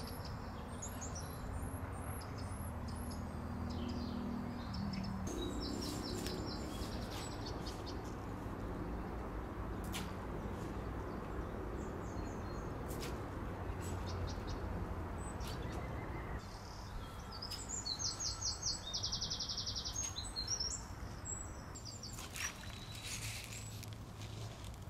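Small birds singing, with several short runs of quick, high, repeated trilling notes over a steady low outdoor background.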